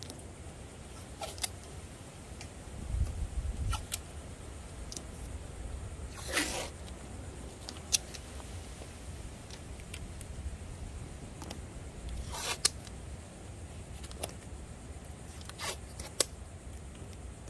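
Scattered scratches and clicks of hand-sanding work on a plastic headlight lens, stripping old clear coat, with two longer swishes about six and twelve seconds in.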